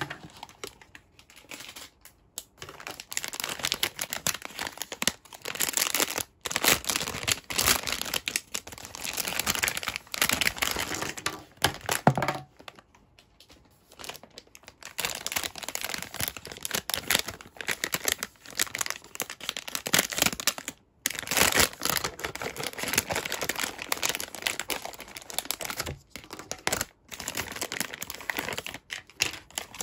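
Clear plastic packaging bags crinkling and rustling as toy pieces are handled and unwrapped, in bursts with short pauses and a quieter stretch about halfway through.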